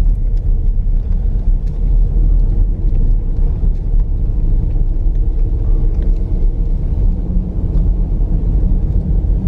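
Dodge Durango R/T's Hemi V8 running steadily while the SUV drives on a snowy road, a heavy low rumble of engine and tyres with a faint steady engine tone.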